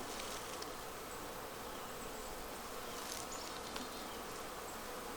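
A colony of honeybees buzzing steadily.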